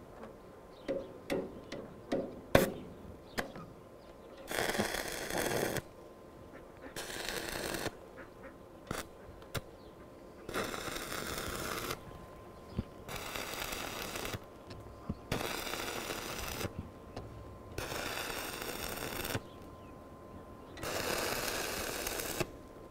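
Electric arc welding on steel in short runs: seven separate bursts of crackling hiss, each lasting about a second, with pauses between them. A few sharp knocks of metal on metal come first.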